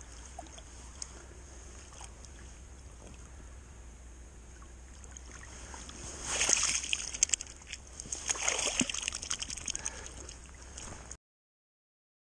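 Water sloshing and splashing in the shallows, with two louder bouts of splashing about six and eight and a half seconds in; the sound cuts off abruptly shortly before the end.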